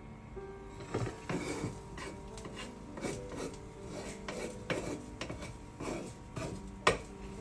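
Wooden spatula stirring and scraping chopped mushrooms around a nonstick frying pan: a string of irregular scrapes and knocks, the sharpest a clack about seven seconds in.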